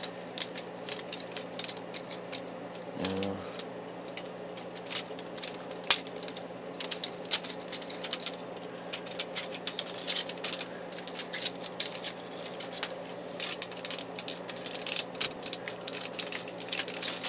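Plastic and metal parts of an HP DeskJet inkjet printer clicking, tapping and rattling as they are handled and pried loose, with many small irregular clicks over a steady low hum.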